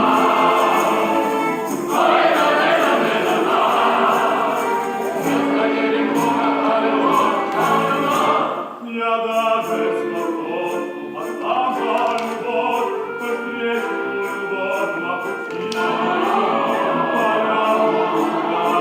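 Music: a choir singing, with a brief dip in loudness about nine seconds in.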